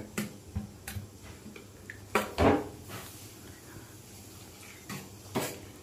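A steel spoon stirring curd salad in a stainless steel bowl, clinking against the bowl in scattered sharp taps. The loudest pair comes about two seconds in, and a couple more come near the end.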